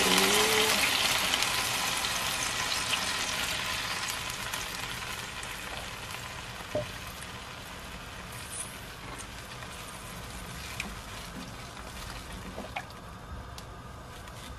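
Chicken broth poured into a hot nonstick pan of browned chicken, hissing and sizzling at first and fading steadily to a quiet simmer. A few light clicks come later on.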